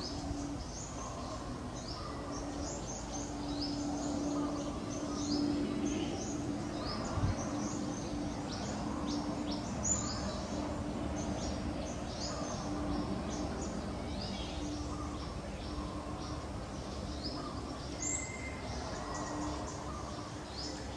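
Many birds chirping in dense, quick, high-pitched calls, over a steady low hum.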